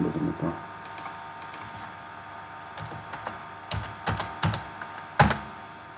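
Computer keyboard keystrokes as a dimension value is typed in. There are a few scattered clicks, then a cluster of key presses between about three and four and a half seconds in, and one sharper, louder click just after five seconds.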